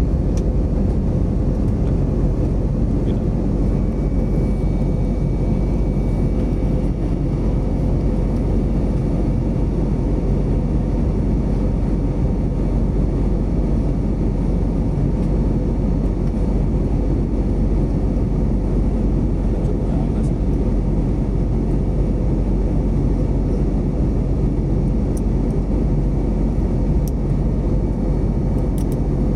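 Jet airliner cabin noise: the turbofan engines and airflow heard from inside the cabin as a steady drone with a faint constant tone.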